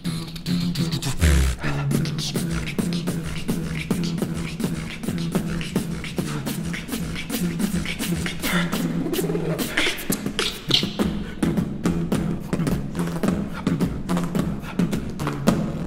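Human beatboxing: a fast run of mouth-made kick, snare and click sounds over a pitched bass line that steps between a few notes.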